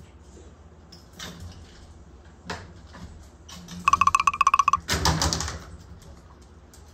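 Plastic water bottle being knocked about on a wooden floor: a few faint knocks, then about four seconds in a rapid rattling run of hard clicks with a ringing tone, and a short crackling clatter a second later.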